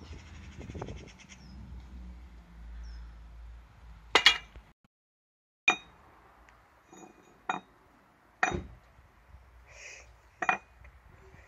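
Metal weight plates on a light barbell clinking, five sharp clinks with a short ring as the bar is lifted and set down.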